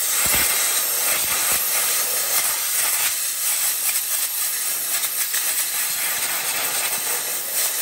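Compressed-air blow gun blowing a steady hiss into a lawn mower's drive-belt and pulley housing, clearing out packed grass clippings.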